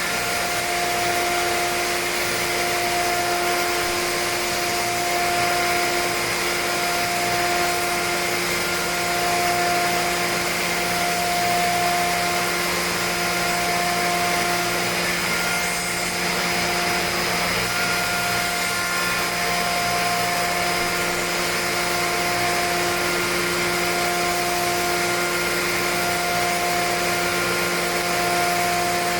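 SAOMAD Woodpecker Just 3500 CNC woodworking machining centre running: a steady motor whine with a rush of air, with a few tones switching on and off every couple of seconds.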